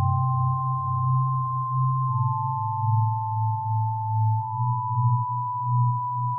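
Electronic music of pure sine tones: two high tones that step to new pitches every couple of seconds, held over a low, pulsing drone.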